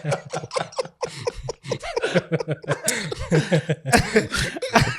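Men laughing together in quick, choppy bursts.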